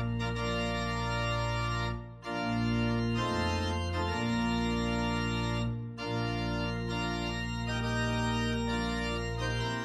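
Organ music: slow, held chords that change every couple of seconds and fade out near the end.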